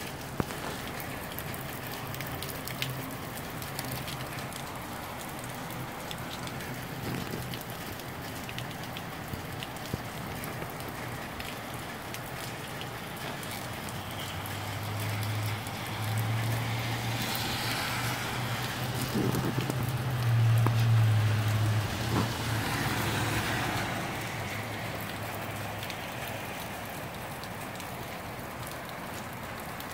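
Moderate rain falling steadily, a constant hiss with scattered drips and ticks. From about halfway to about two-thirds through, a low steady hum rises under it with two louder swells of rushing noise.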